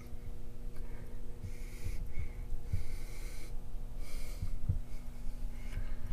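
A person breathing audibly through the nose close to the microphone, about four breaths a second or so apart, over a steady low hum and a few low bumps.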